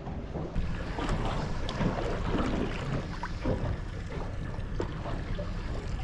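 Wind on the microphone and water lapping against the hull of a drifting boat, with a few faint knocks.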